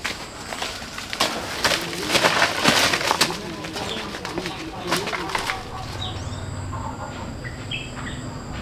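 Rustling noise in a run of bursts, loudest about two to three seconds in, with another burst near the middle, then short bird chirps in the second half.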